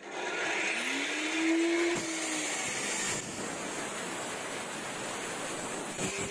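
Angle grinder in a cut-off stand starting up, its whine rising over the first second or two, then its abrasive cut-off disc cutting through a steel tube with a steady grinding noise.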